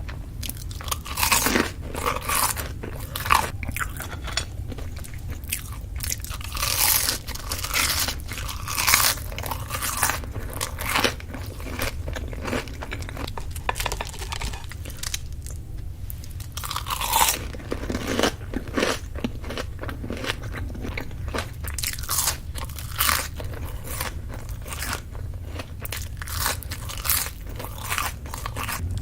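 Close-miked eating: crunchy bites and chewing of crisp food, irregular crackling crunches that come in clusters, over a steady low hum.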